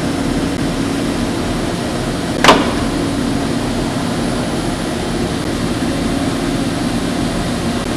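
Steady machine hum from a robotic assembly cell, with one sharp knock about two and a half seconds in.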